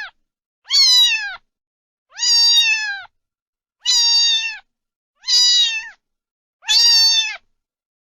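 A cat meowing over and over, about one meow every second and a half. Each meow is a held, fairly high note that drops in pitch at the end.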